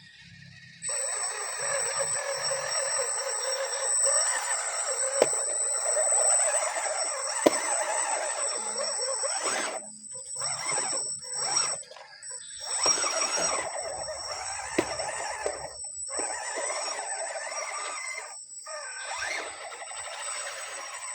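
Electric drive of an RC crawler truck running: motor and gear whine with a steady high-pitched whine over it. It starts suddenly about a second in and cuts out briefly several times as the throttle is let off.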